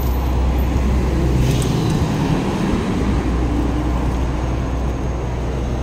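Road traffic: cars and a bus driving past on a multi-lane road, a steady rumble of engines and tyres.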